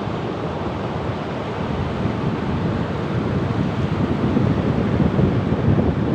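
Open-sea waves washing in a continuous wash of surf, with a heavy low rumble, swelling gradually louder toward the end.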